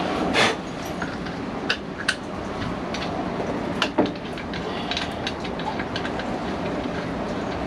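Irregular clicks and knocks of portable antenna parts being handled and fitted together, over a steady rushing background noise.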